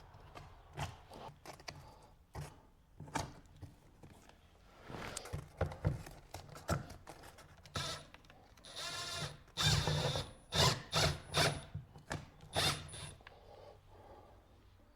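Scattered knocks and handling clatter, then a power drill run in about six short bursts, the loudest part of the sound, while driving a screw into a wall anchor.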